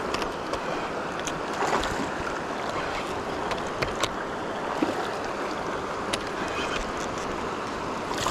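Steady rush of water through river rapids, with scattered small clicks and splashes. A louder splash starts right at the end as the hooked doradillo thrashes at the surface.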